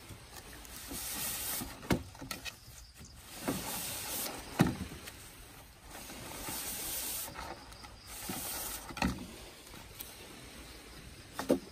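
Nylon webbing strap being pulled and wrapped around bamboo poles: repeated swishing slides of the strap, with several sharp knocks of hands and strap against the bamboo.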